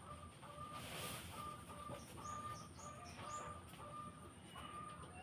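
Faint outdoor bird calls: one bird repeats a short single note about twice a second, and a run of four quick high chirps comes about two seconds in.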